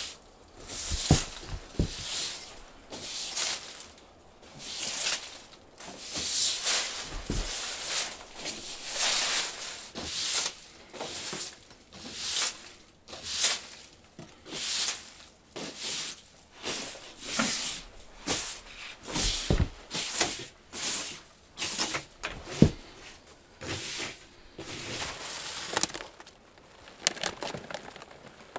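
A spruce branch swept across a concrete floor in repeated brushing swishes, irregular, about one a second. A few low knocks fall among the strokes.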